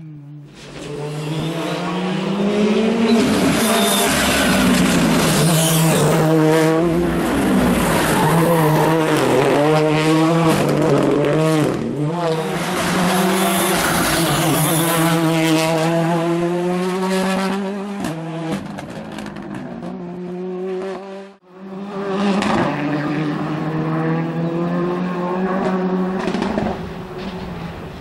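Ford Fiesta rally car engine at full attack, revving hard and dropping back repeatedly through gear changes and corners as it approaches and passes. About two-thirds of the way through it cuts off abruptly, and a second rally car is heard revving through a hairpin.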